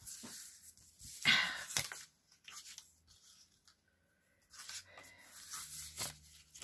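Sheets of paper and cardstock being handled and slid across a cutting mat, giving dry rustling and scraping. The loudest rustle comes about a second in, and softer ones follow near the end.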